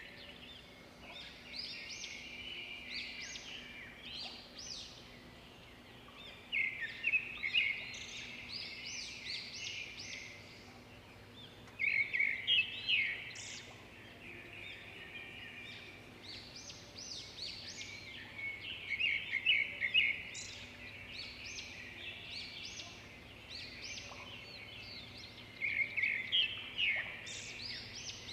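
Birds chirping and singing, with a burst of loud rapid chirps about every six seconds and quieter calls between, over a faint steady background noise.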